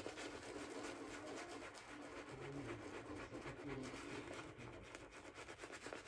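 Faint scratchy strokes of a double-edge safety razor scraping across lathered stubble.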